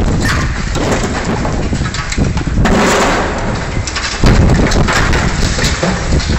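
Liebherr 944 demolition excavator at work on a steel girder and rubble: continuous crunching and clattering with many sharp knocks, getting louder about four seconds in.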